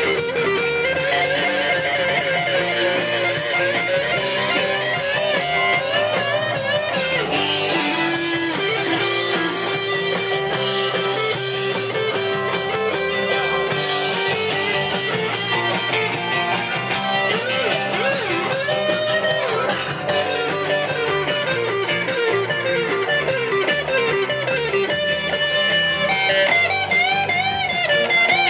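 Electric guitar lead played through an amplifier: a continuous run of notes full of bends and wide vibrato, climbing to high, wavering notes near the end.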